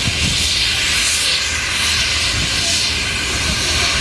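Steam locomotive venting steam from its cylinder drain cocks: a loud, steady hiss that swells and eases slightly every second or so.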